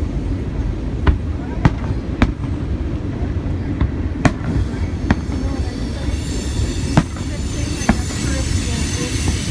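Fireworks going off: about seven sharp bangs at irregular intervals over a steady low rumble.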